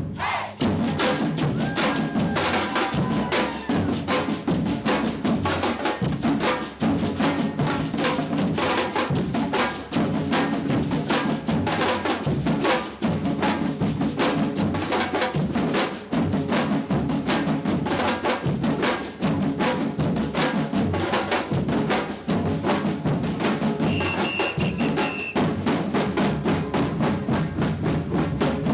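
A samba percussion band playing a dense, steady groove on drums, with wood-block and tambourine-like strokes over deep bass drum. A short high steady tone sounds once, late in the passage.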